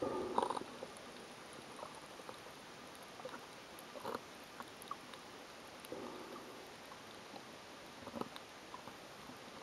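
Underwater ambience through a camera housing: a steady hiss with a few scattered crunches and clicks, the loudest near the start and others around the middle and near the end.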